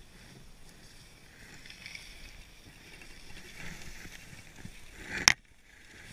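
Skis sliding and scraping over packed snow, a steady hiss, with one sharp knock about five seconds in.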